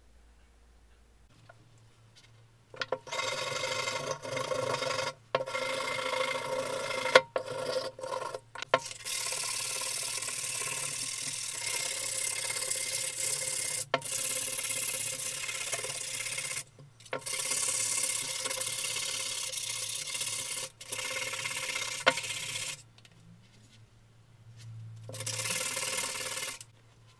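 Sandpaper rubbed by hand over the rusty dished metal breast plate of an old hand drill, to take off the rust: long stretches of steady scratchy sanding with brief pauses, starting about three seconds in, then a short break and one more burst near the end.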